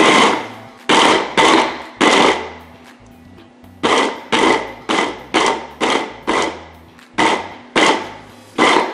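MEGAWISE 800-watt immersion blender motor driving its chopper attachment in short pulses, chopping raw carrots and other vegetables in the bowl. About a dozen bursts come in three quick groups, each starting sharply and dying away over about half a second as the motor spins down.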